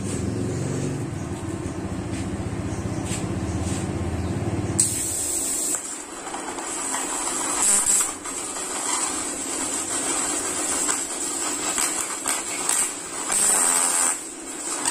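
A low hum, then about five seconds in a TIG welding arc from a Caldwell TIG 250 GP inverter welder strikes: a hissing, crackling arc over a steady high-pitched whine, swelling and dipping in loudness.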